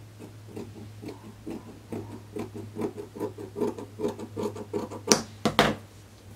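Yellow-handled fabric scissors snipping through two layers of thin fabric in a quick, steady run of short cuts. A little after five seconds in come a few louder sharp clacks, the scissors being laid down on the wooden table.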